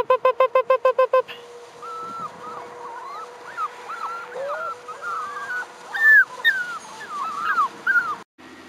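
Braque du Bourbonnais puppies whining and yipping: a string of short, high, rising-and-falling cries from about two seconds in, one louder near the middle. It opens with a rapid run of about a dozen short identical tones, about six a second, lasting a little over a second.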